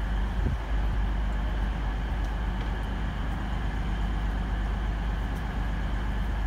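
Class 222 Meridian diesel multiple unit's engines running at the platform, a steady low drone.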